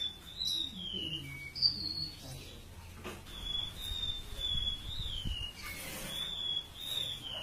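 A siur-siur laut songbird singing a run of thin, high whistled notes, several of them sliding downward, repeated phrase after phrase.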